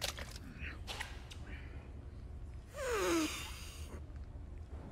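A man drinking from a bottle with a few short breathy sounds, then about three seconds in a loud, breathy gasp whose pitch falls steeply.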